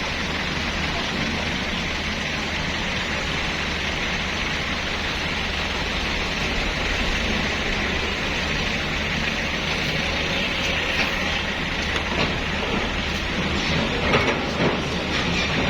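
Heavy diesel engine running steadily, a low hum under an even rushing noise, with a few short knocks about 14 seconds in.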